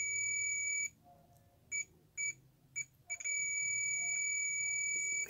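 Digital multimeter's continuity buzzer beeping at one steady high pitch with its probes on a shorted transistor in a motherboard's V-core circuit. The tone holds for about a second, breaks into three short beeps, then holds unbroken again from about three seconds in; the continuous beep signals a short circuit.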